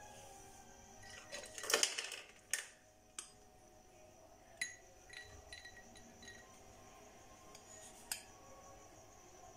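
Metal spoon scooping whipped coffee and clinking against a glass bowl and glass tumbler: a short burst of scraping and clinks about two seconds in, then single ringing clinks spaced a second or so apart, the last near the end.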